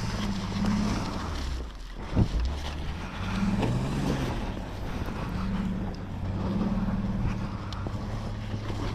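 Off-road vehicle's engine running under load in deep snow, its pitch rising and falling as the throttle changes, with a sharp thump about two seconds in.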